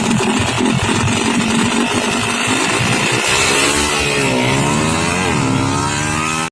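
Motorcycle engine revved hard: a rough, crackling run for about three seconds, then a clearer engine note that drops in pitch, climbs again and falls once more before cutting off.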